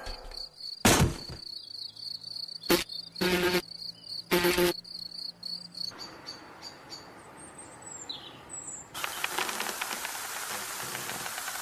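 Cartoon insect sound effects: a high, steady insect trill with four loud, brief noises in the first five seconds, then a few short high chirps and, from about nine seconds, a steady hiss.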